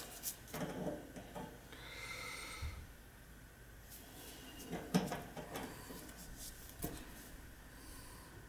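Quiet handling noise of a meter's test leads being put on a furnace blower's run capacitor: scattered light clicks and knocks, the sharpest about five seconds in.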